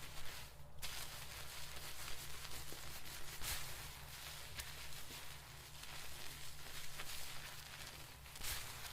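Hands scrubbing and rubbing through hair and scalp during a dry shampoo wash, a crackling, rustling hiss that swells a few times.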